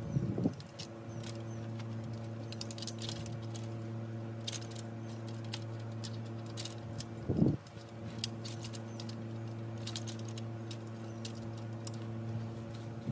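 Light metallic clinking and jingling from A-frame blind parts being handled during assembly, with two duller thuds, one at the start and one about halfway through, over a steady low hum.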